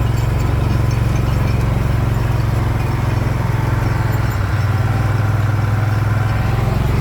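Engine of a farm vehicle running steadily, its pitch dropping slightly about four seconds in.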